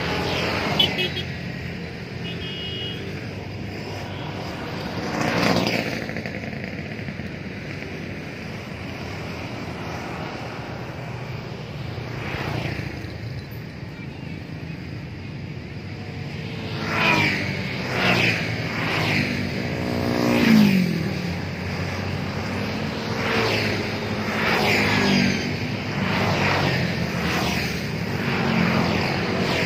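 Road traffic, with motorcycles and cars passing one after another over a steady hum. The passes grow louder and more frequent in the second half, and one engine's pitch drops as it goes by.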